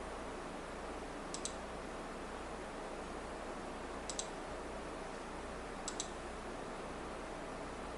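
Three quick double clicks at a computer, about two seconds apart, over the steady hiss and low hum of running computers.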